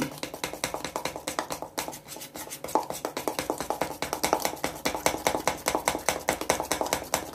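Metal spoon beating egg into flour batter in a small steel tumbler: rapid, rhythmic clinking of the spoon against the cup's side, about seven strikes a second.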